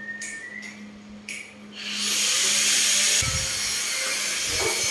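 Cordless drill motor spinning up about two seconds in, a rising whine that then holds, with a loud hiss. After a second or so the whine stops while the noise goes on with low knocks.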